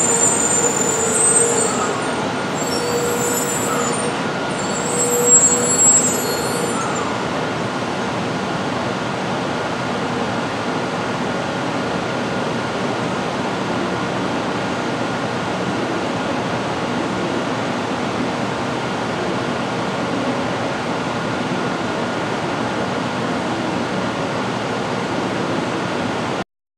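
JR West 700 series Rail Star shinkansen slowing to a stop at a platform, with a high squeal over its running noise for the first several seconds. After that comes a steady, even hum from the standing train, which cuts off abruptly near the end.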